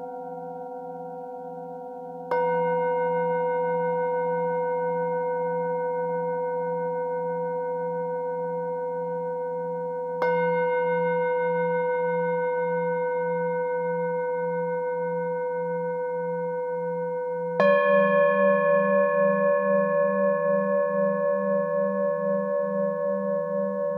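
Singing bowls struck with a mallet three times, roughly eight seconds apart, each strike ringing on in a long, slowly fading hum that wavers. The first two strikes sound the same bowl. The last, louder strike sounds a different, higher-pitched bowl.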